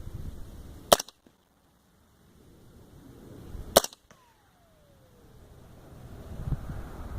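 Two suppressed shots from a .300 AAC Blackout rifle firing subsonic 220-grain ammunition through an AAC 7.62 SD suppressor, about three seconds apart. After the second shot there is a brief ring that falls in pitch.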